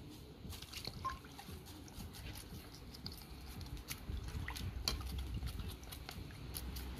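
Saltfish being rinsed by hand in a metal pot of water: light splashing and dripping, with scattered small clicks as a knife scrapes scales off the fish.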